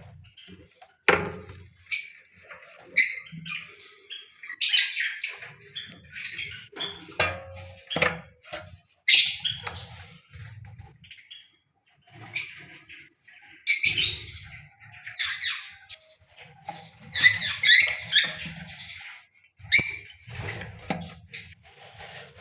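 Lovebirds chattering: short, shrill chirps and squawks at irregular intervals throughout, with the loudest bursts in the second half.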